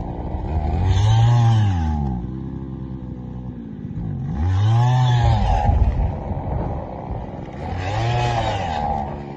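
Power ice auger's motor revving up and dropping back three times, a few seconds apart, as it bores into the ice; the owner says it is still not working well.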